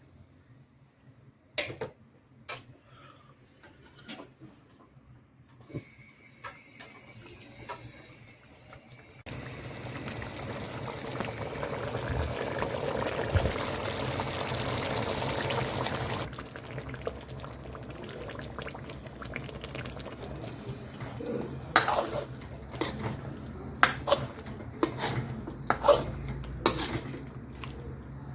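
Cooking sounds at a karahi pan. There is a steady rush of liquid for about seven seconds in the middle, then a metal utensil knocks sharply against the pan several times near the end.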